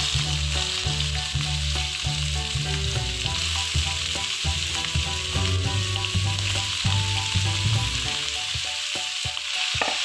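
Spice paste and leaves sizzling in hot oil in a wok, stirred with a metal spoon that scrapes and knocks against the pan. Freshwater snails in their shells go into the wok partway through, and the frying carries on around them.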